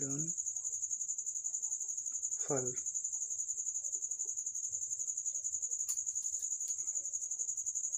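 Cricket chirping continuously: a high, steady trill made of rapid, even pulses.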